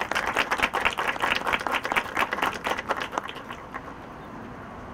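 A small group of people applauding, the claps thinning out and dying away about three and a half seconds in.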